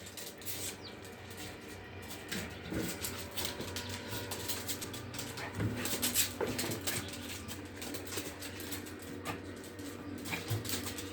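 Household pets moving about: scattered rustles and soft knocks over a steady low hum.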